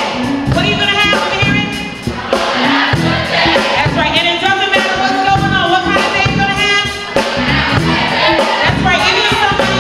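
A woman singing into a microphone in a gospel-tinged style, backed by a live band with electric bass and a drum kit keeping a steady beat.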